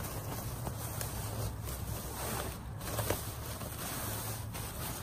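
A clear plastic bag and a blue nylon laundry bag rustling and crinkling as they are handled and pulled open, over a low steady background rumble.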